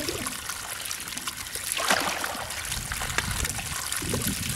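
Water trickling and splashing steadily as it runs through a narrow cut in a mud bank and falls into a woven fish trap, with a brighter splash about two seconds in.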